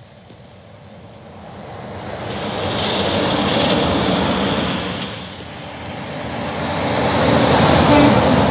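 Two semi trucks passing at highway speed one after the other, a tank truck and then a tractor pulling a bottom-dump trailer: the tyre and engine noise swells to a peak about three seconds in, dips, and swells again near the end.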